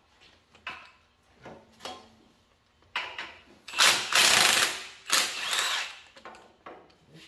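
Impact wrench running in short bursts, then in two longer, louder runs about four and five seconds in, backing off the nuts on the old mounting bolts on the applicator toolbar.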